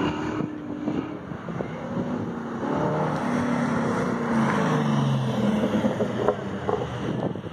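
Chevrolet Camaro's engine running hard through an autocross course as the car approaches and passes close by. Its note rises and then falls away in pitch.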